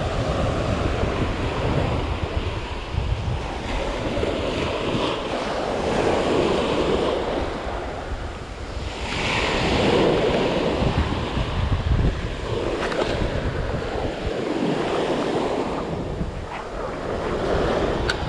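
Surf washing onto the beach in repeated swells, one louder wave breaking about halfway through, with wind buffeting the microphone.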